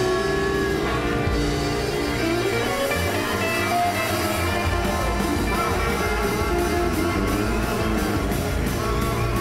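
Rock music with guitar; a steady beat comes in about halfway through.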